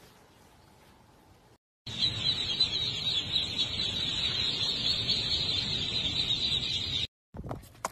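A dense, steady chorus of many ducklings peeping at once, starting about two seconds in and cutting off abruptly near the end. Before it there is only faint, quiet outdoor ambience.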